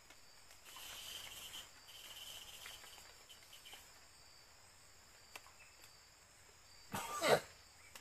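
Night insects, crickets, buzzing steadily, with a shriller trill on and off in the first few seconds. Near the end a man lets out one short, loud throaty sound that falls in pitch.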